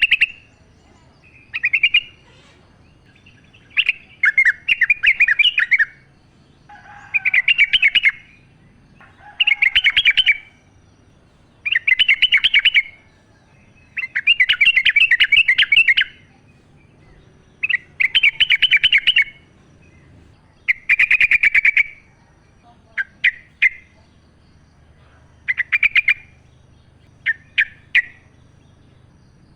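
Yellow-vented bulbul (trucukan) singing: phrases of quick notes, each one to two seconds long, repeated about every two seconds, with shorter snatches near the end.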